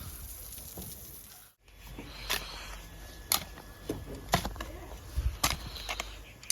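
Irregular sharp taps or knocks, about six over four seconds, against a steady background hiss, after a brief dropout about a second and a half in.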